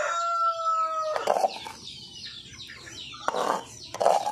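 Rooster crowing, its long held final note ending about a second in, followed by short chicken clucks.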